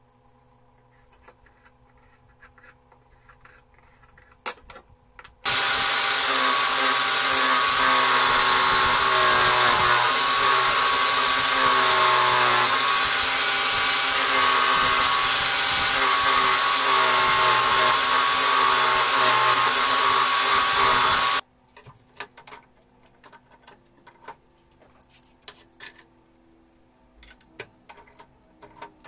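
A bench-mounted power tool running steadily for about sixteen seconds, its motor pitch wavering slightly as a small piece of wooden handle stock is fed against it by hand. It starts and stops abruptly, with light handling clicks and knocks before and after.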